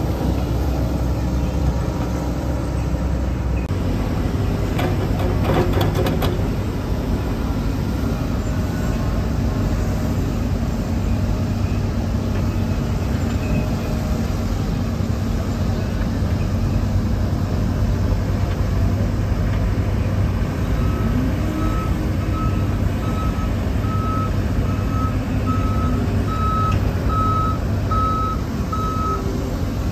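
John Deere 75 P-Tier excavator's diesel engine running steadily under digging load, its note shifting about four seconds in, with a few sharp metal knocks soon after. In the last third a backup alarm beeps at a steady pace of a little over one beep a second, growing louder.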